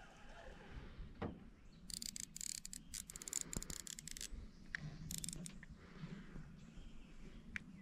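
Fishing reel's line clicker ticking in rapid bursts for about two seconds, then briefly once more: line being pulled off the reel by a fish taking the bait.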